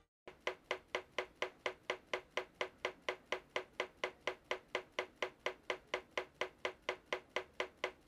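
A rapid series of sharp, evenly spaced taps, about four a second.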